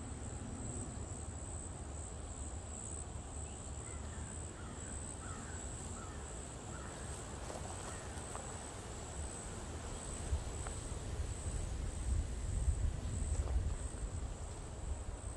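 Woodland insects trilling on one steady high pitch, with faint bird calls about four to eight seconds in. A low rumble grows near the end.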